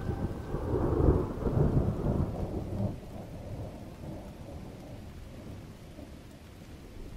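Thunder rumbling over rain, strongest in the first three seconds, then dying away to a faint rain hiss.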